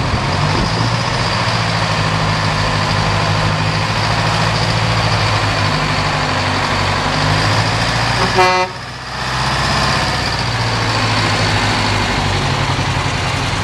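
Detroit Diesel engine of an FTF heavy truck running steadily as the truck pulls away, with a short blast of its horn about eight seconds in.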